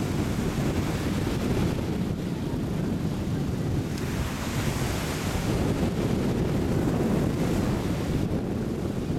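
Surf breaking and washing up the beach under wind buffeting the microphone, with a swell of wave hiss about halfway through.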